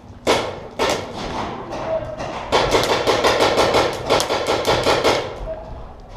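Paintball marker fire: two single shots in the first second, then a rapid string of shots at about nine a second for nearly three seconds, echoing in a stairwell.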